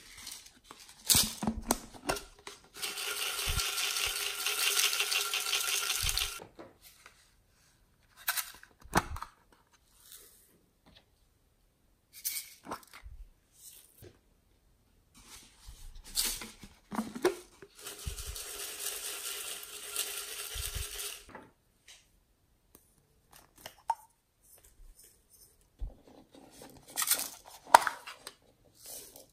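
Glitter and sequins rattling inside toy-shaped plastic containers as they are shaken out over slime, in two long spells, with clicks and taps of the plastic containers and lids in between.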